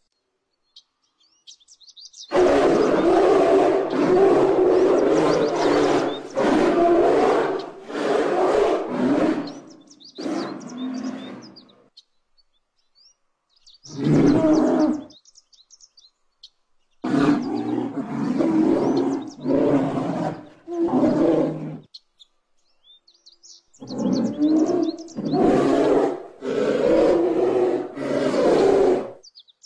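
Bear calling: a series of long calls in about five bouts, the longest near the start, with faint bird chirps in the pauses.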